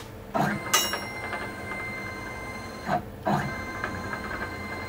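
Workbee CNC router's stepper motor driving the gantry along its 1.5 m, 8 mm lead screw: a steady motor whine over a fine rattle, with louder clattering knocks about half a second in and again about three seconds in. The long lead screw is whipping, which the owner puts down to the screw buckling under compression.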